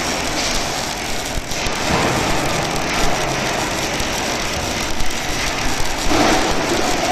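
Steady crackling hiss of an arc welding torch running along a seam on a motorised welding carriage.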